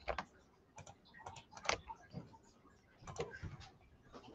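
Faint, irregular clicking of a computer mouse and keyboard, a dozen or so separate clicks.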